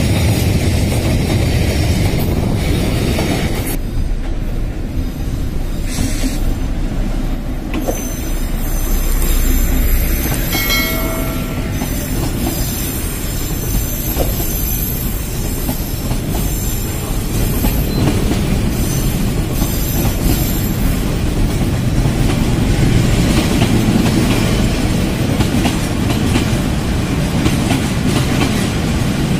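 Freight train of container flat wagons rolling past, its steel wheels clattering and squealing on the rails, with a short pitched tone about eleven seconds in.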